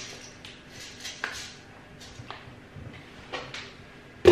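Dry spaghetti being fed into a stainless steel pot of boiling water: a few soft clicks and taps spaced about a second apart, over a faint steady hum.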